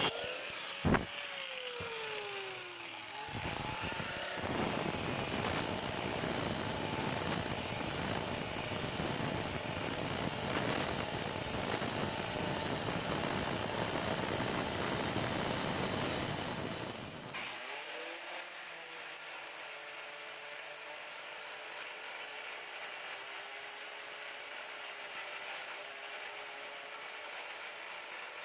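Workshop power tool noise: a few falling whines in the first seconds, then a steady loud rushing that cuts off about 17 seconds in, leaving a quieter steady hum.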